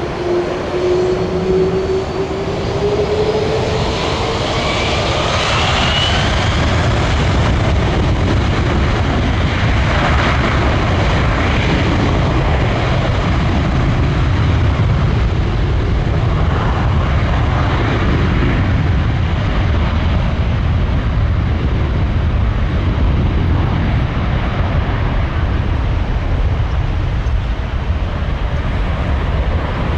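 Jet airliner flying low overhead: a rising engine whine over the first few seconds, then a steady deep rumble of the jet engines.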